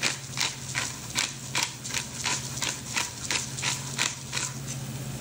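Pepper mill being twisted to grind fresh black pepper, with a crunchy click about three times a second that stops shortly before the end. A steady low hum runs underneath.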